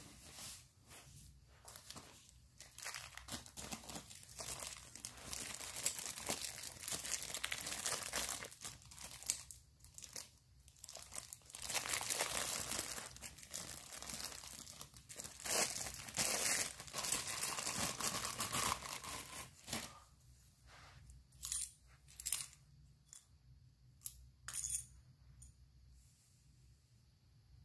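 Thin plastic packaging bag crinkling and tearing as a bicycle headset cup is unwrapped by hand, followed by a few light clicks as the part is handled near the end.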